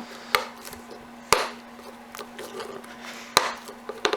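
Sharp clacks of hand tools and hard-drive parts being handled and set down on a work surface, four separate knocks, over a faint steady hum.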